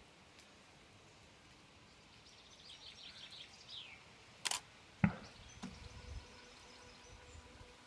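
A DSLR's shutter clicks once about four and a half seconds in, and a sharp knock follows half a second later. Faint bird chirps come just before, and a faint steady hum runs through the last couple of seconds.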